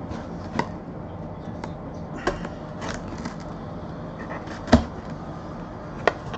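Cardboard product packaging being handled: a scattering of light taps and knocks, about six in all, with the loudest thump about four and a half seconds in.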